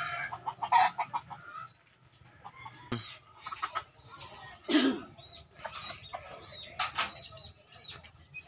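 Free-range chickens clucking while they feed, in short scattered calls with a few louder ones about one, five and seven seconds in.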